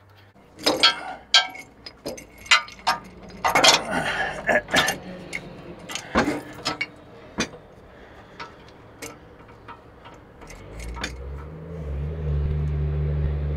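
Metal parts clanking and knocking in quick irregular strikes as the cab hinge is worked on, then about ten seconds in a motor starts and runs with a steady low hum.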